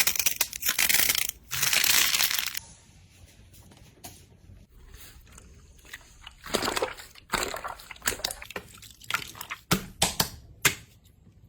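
Slime being pressed and squeezed by hand: dense crunching crackles for the first two and a half seconds, then, after a quiet stretch, a series of wet crackling presses and a few sharp pops near the end.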